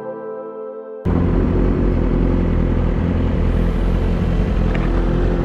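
Ambient background music fades and cuts off suddenly about a second in. A sportbike's engine then idles steadily while the bike stands still.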